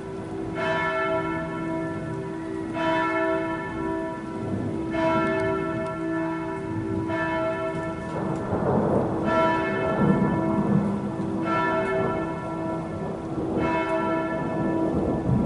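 A church bell tolling slowly, one stroke about every two seconds, each stroke ringing on into the next, over steady rain. A rumble of thunder swells up about eight seconds in.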